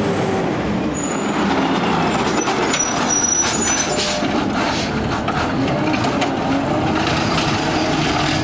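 McNeilus ZR automated side-loader garbage truck's natural-gas engine running hard, its pitch slowly rising and falling as the driver works the throttle, with a hiss of air brakes about four seconds in.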